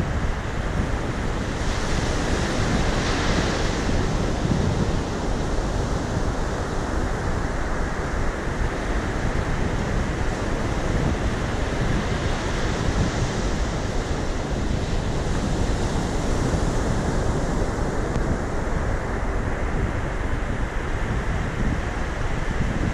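Ocean surf breaking and washing up a sand beach, a continuous wash that swells a little about two to three seconds in.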